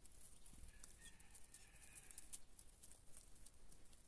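Faint, irregular quick ticks and rustles of a Eurasian jay and sparrows pecking at scattered corn kernels and hopping on dry ground, with faint bird chirps.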